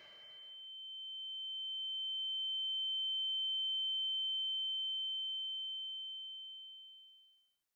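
A single steady high tone in the song's soundtrack. It swells up, then fades away and stops about seven seconds in.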